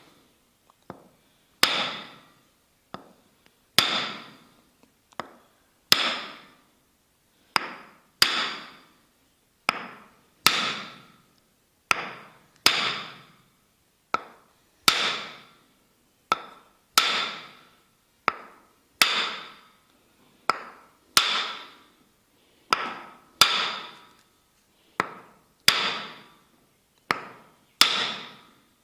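Tok sen massage: a wooden mallet tapping a wooden wedge held against the body. Each strike rings briefly. The strikes come about a second apart, with a louder one roughly every two seconds and lighter taps in between.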